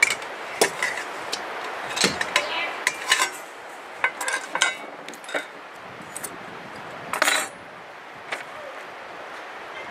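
Metal parts of a Weber Smokey Joe grill clinking and knocking together as they are handled, with a longer metallic rattle about seven seconds in.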